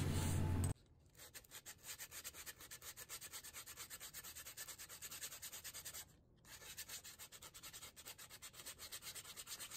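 Hand sanding: a folded sheet of sandpaper rubbed back and forth over a wooden bandsaw box, faint scratchy strokes about three a second, with a couple of short pauses. It opens with a low hum that cuts off under a second in.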